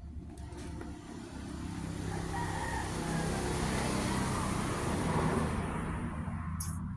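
A motor vehicle passing by on a road, its engine and tyre noise swelling to a peak midway and then fading away.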